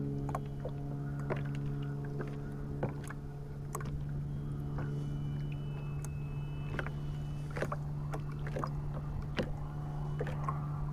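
Kayak sitting on calm water, with small water taps and ticks against the hull scattered throughout, more of them in the second half, over a steady low hum.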